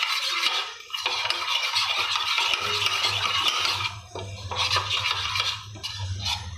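A spoon stirring and scraping around a bowl, mixing coconut milk with mixed herbs, black pepper and salt. The strokes run on with brief pauses about a second in and about four seconds in, over a faint steady low hum.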